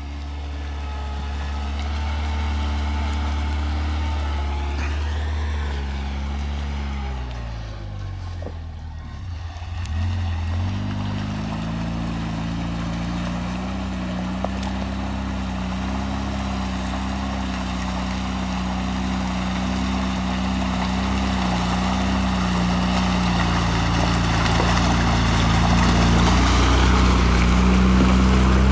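Engine of a Kipach 6x6 all-terrain vehicle running as it drives through shallow lake water. The engine note drops about a third of the way in, picks up again around ten seconds, then holds steady and grows louder as the vehicle comes closer, with water churning around its wheels.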